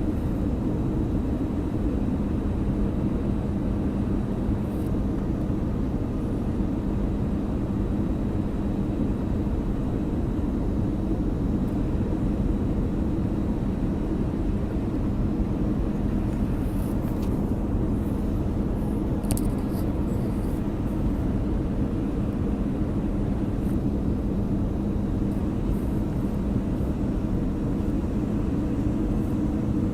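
Steady engine drone of an Airbus A318 airliner heard inside the passenger cabin: an even low rumble with a constant hum, and a few faint clicks around the middle.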